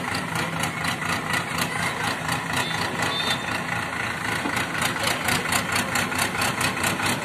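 Terex TLB740S backhoe loader's diesel engine running steadily at idle, with an even pulsing clatter.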